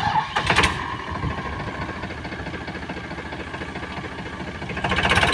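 Powertrac Euro 50 tractor's diesel engine running with a rapid knocking pulse, revving up and getting louder near the end. A few sharp clatters come in the first second.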